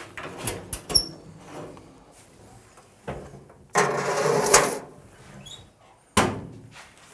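Small electric cooker being set and shut: a few clicks from its knobs being turned, a metallic clatter at the oven about four seconds in, then the oven door banging shut a little after six seconds.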